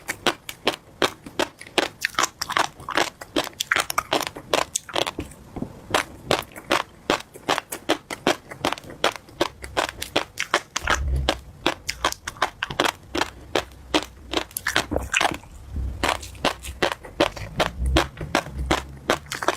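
Close-miked chewing of crunchy tobiko (flying fish roe): a steady run of crisp little pops and crackles, several a second, as the eggs burst between the teeth, with some low thuds in the second half.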